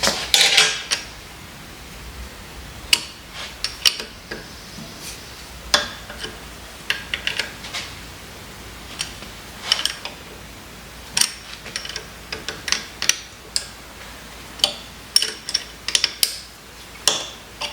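Allen wrenches clinking and scraping against the steel parts of a milling vise as its screws are worked loose: scattered sharp metal clicks at irregular intervals, with short pauses between.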